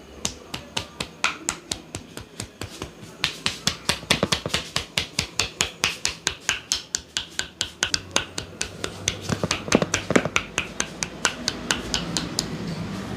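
A massaging barber's hands slapping in quick, even rhythm, a percussive tapping massage, about three slaps a second at first and four to five a second later. A few louder slaps come about ten seconds in, and the slapping stops shortly before the end.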